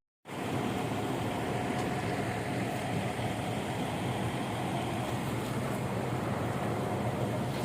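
Heavy diesel construction machinery running steadily, an even engine drone with a low hum, cutting in a moment after the start.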